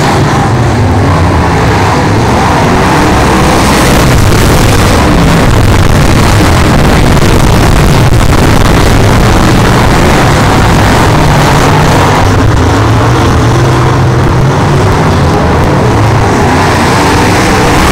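Dirt late model race cars' V8 engines running hard around the track, several cars at once, loud and continuous, the engine note rising and falling as the cars go through the turns and down the straights.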